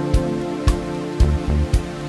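Background music with a steady beat: sustained chords over a drum hit about twice a second.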